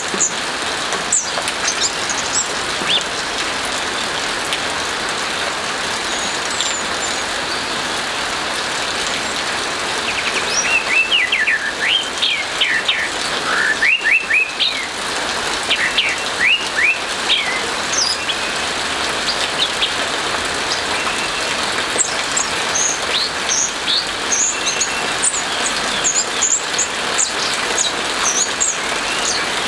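Orange-headed thrush singing: scattered high chirps, then runs of quick whistled notes about a third of the way in and again in the last part, over a steady hiss of rain.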